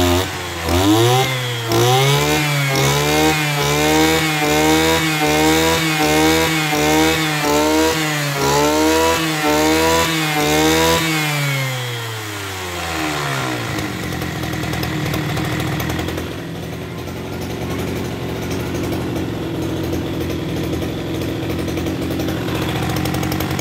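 Ranee 302 30cc brush cutter engine revved to high speed about half a second in and held there, its pitch wavering slightly and regularly. About twelve seconds in the throttle is released and the engine winds down over a couple of seconds to a steady idle.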